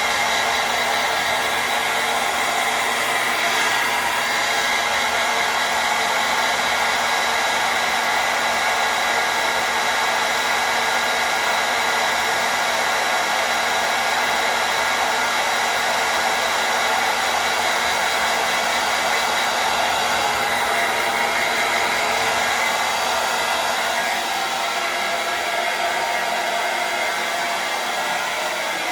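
Hair dryer running steadily: a continuous rush of blown air with a whine through it, a little quieter near the end.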